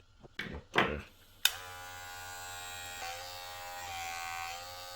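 A few handling clicks, then a battery-powered LF0012 hair clipper is switched on with a sharp click about a second and a half in and runs with a steady buzzing hum, its pitch shifting slightly about halfway through. The blade and cam follower have just been refitted.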